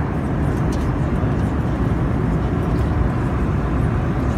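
Steady cabin noise of an Airbus A320 in flight: the even, low rumble of engines and airflow heard from inside the passenger cabin.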